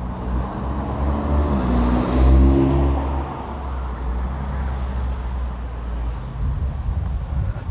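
A car driving past, its engine note rising as it accelerates, loudest about two seconds in and then fading away.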